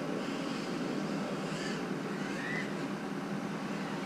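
Small ducted FPV quadcopter in flight: a steady propeller buzz, with a faint motor whine that rises in pitch about two seconds in.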